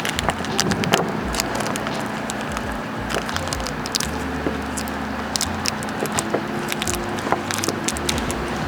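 Irregular small clicks and crackles of hands working adhesive tape and plastic parts at close range, over a low steady hum.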